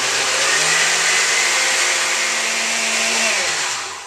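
Countertop blender running at full speed, churning a thick mix of oatmeal, banana, bran flakes and water. About three seconds in it is switched off and its motor whine falls away as it spins down.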